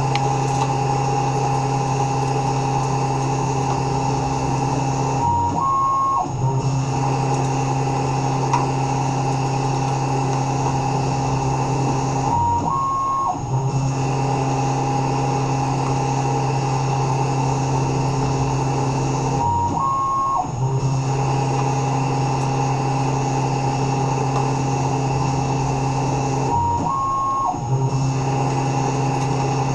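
Tormach 1100 CNC mill spindle running as a lathe, a steady machine hum that breaks off briefly about every seven seconds in a repeating cycle.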